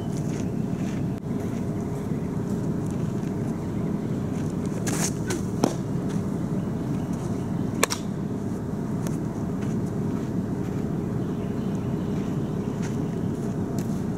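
A fastpitch softball smacking into a leather glove, two sharp pops about five and a half and eight seconds in, over a steady low outdoor rumble.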